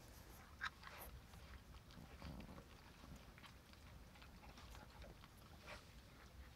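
Several puppies licking and smacking at ice cream, faint, with scattered small clicks and one sharper tick about half a second in.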